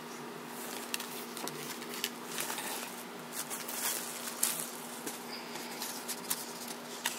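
Faint rustling and light taps of a handmade cardstock tag being handled and laid down on a table, over a steady low hum.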